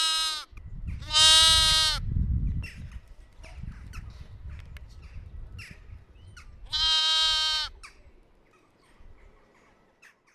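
Baby lamb bleating: three loud, high bleats, the first cut short at the start, the loudest about a second in and the last near seven seconds in. Between them there is low rumbling noise and a few faint clicks.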